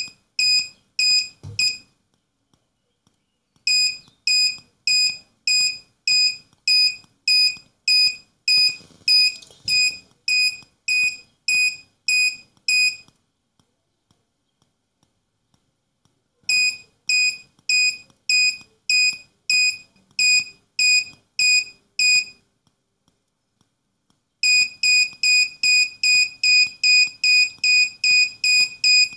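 An Arduino-driven active buzzer beeping on and off at a steady pace, about two high-pitched beeps a second. The beeping stops twice for a few seconds, then comes back faster near the end.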